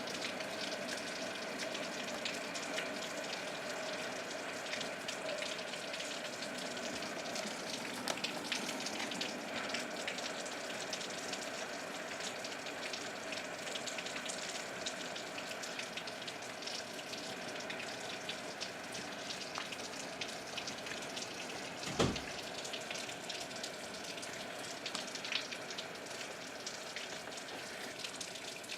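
Rain falling steadily, with many fine drop impacts crackling on hard surfaces. A single sharp knock about three-quarters of the way through.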